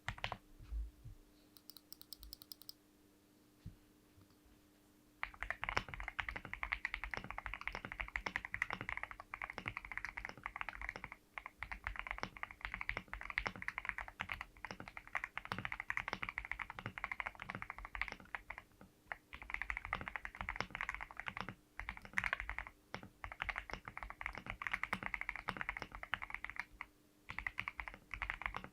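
Typing on an Akko custom mechanical keyboard. There are a few scattered key presses at first, then fast, continuous typing from about five seconds in, broken by a few brief pauses, over a faint steady hum.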